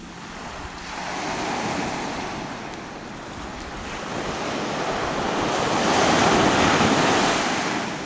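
Small waves breaking and washing up a sandy beach: two rushes of surf, a smaller one about a second in and a louder one that swells after the middle and fades near the end.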